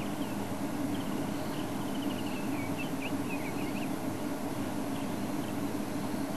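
Game-drive vehicle's engine idling as a steady low hum, with small birds chirping and trilling between about one and three and a half seconds in.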